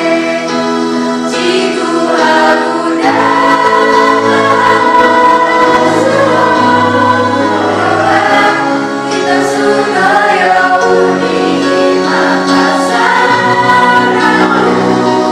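A vocal group singing a song together in unison, with held, sliding sung notes throughout.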